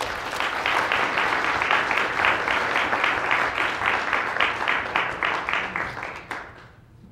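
Audience applauding at the end of a talk, a dense run of many hands clapping that dies away about six and a half seconds in.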